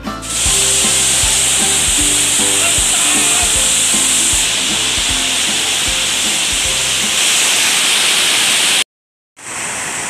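Waterfall rushing, a loud steady hiss of falling water, with music playing underneath for most of it. The sound cuts out briefly about nine seconds in.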